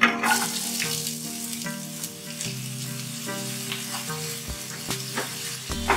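Diced raw potatoes tipped into hot mustard oil in a non-stick kadai, setting off a sudden sizzle that settles into steady frying, with a few light clicks.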